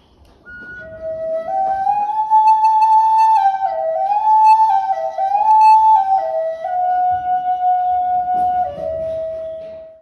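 Wooden end-blown flute playing a slow, simple melody of held notes that step up and down within a few pitches. It settles on a long low note that fades out at the end.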